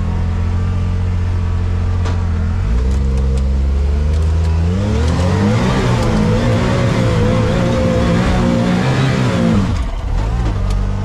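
Can-Am Maverick R UTV's engine revving up under load: the revs climb about a third of the way in, are held high and wavering with a hiss for several seconds, then drop back near the end.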